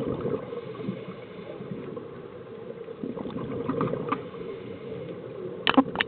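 Muffled underwater gurgling and rumble of scuba bubbles, heard through an underwater camera housing. Light clicks scatter through the second half, and two sharp clicks near the end are the loudest sounds.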